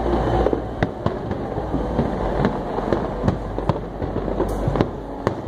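Fireworks display going off: a rapid series of sharp bangs and crackles, several a second, over a continuous rumble of distant bursts.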